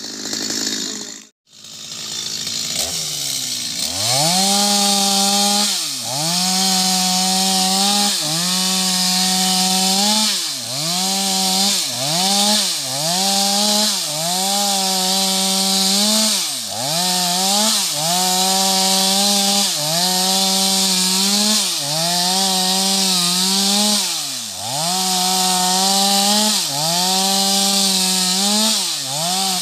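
Two-stroke chainsaw cutting into the trunk of a sengon tree at full throttle. About three seconds in it revs up, then its pitch sags and recovers again and again, about every one to two seconds, as the chain bites into the wood and eases off.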